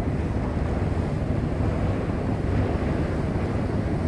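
Steady wind on the microphone on a moving ship's open deck, a low, even rumble mixed with the wash of the sea along the hull.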